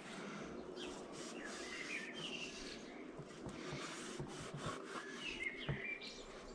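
Cloth rag rubbing over the steel shell of an M42 helmet, wiping off loosened paint stripper, with a few light knocks in the second half. Birds chirp in the background.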